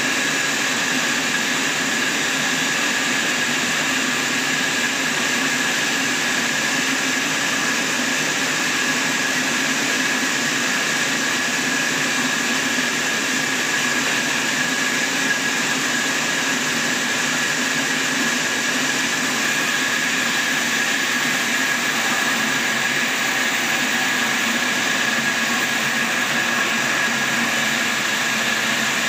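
Horizontal band sawmill running and sawing through a large log: a steady, unbroken machine noise with a constant high whine from the blade.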